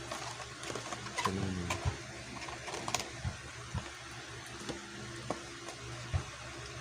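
Scattered light clicks and taps from hands handling the cube's packaging, over a steady low hum.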